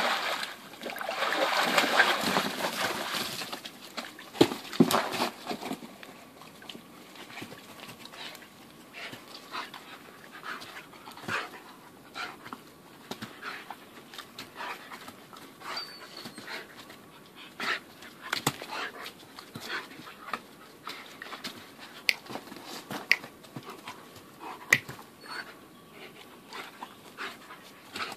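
A large dog splashing water in an inflatable paddling pool for the first three seconds or so. After that comes a long run of scattered short clicks and knocks as the dog moves about.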